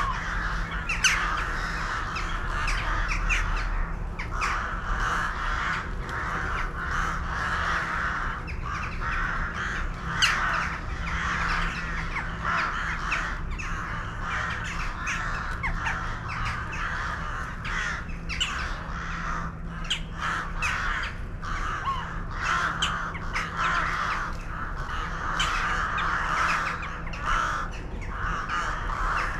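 A large flock of birds calling continuously, with many overlapping short calls blending into a steady chatter.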